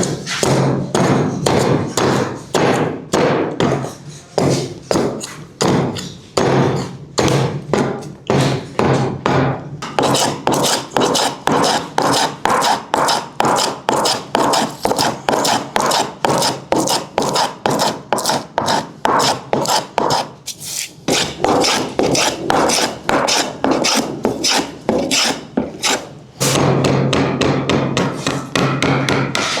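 Rapid, regular strokes of a hand tool working the wooden cricket bat, about three to four a second, stopping a few seconds before the end, over a steady low machine hum.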